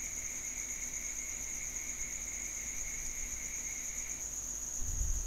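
Steady high-pitched background trilling with a fainter lower tone that drops out near the end, and a low thump about five seconds in.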